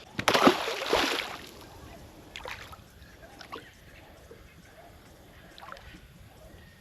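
Water splashing and sloshing for about a second near the start as a small mulloway is let go over the side of a small boat, followed by a few faint knocks and light water sounds.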